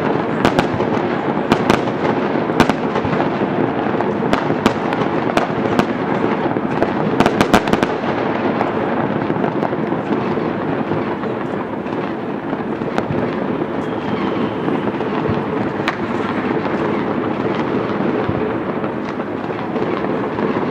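Many fireworks and firecrackers going off at once: a continuous rumbling wash of bangs with frequent sharp cracks, the cracks thickest for the first eight seconds or so and then fewer.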